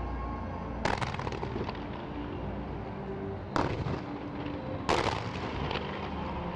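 Aerial fireworks shells bursting in three sharp bangs, about a second in, three and a half seconds in and five seconds in, each followed by crackling.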